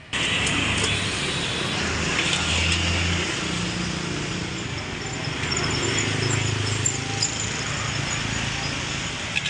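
Bánh xèo batter sizzling in a hot oiled wok as it is ladled in and spread around the pan, a steady hiss over a low rumble.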